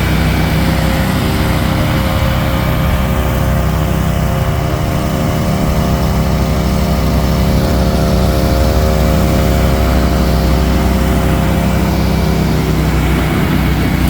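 Mahindra eMax 20 compact tractor's diesel engine running steadily at a constant speed.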